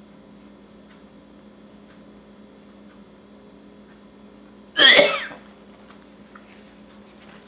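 A woman lets out one sudden, loud cough-like outburst about five seconds in as she tries to swallow a bite of cooked cow kidney that she cannot get down.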